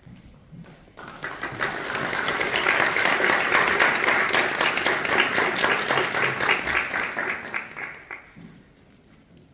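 Audience applauding in a hall. The clapping starts about a second in, holds steady, and dies away near the end.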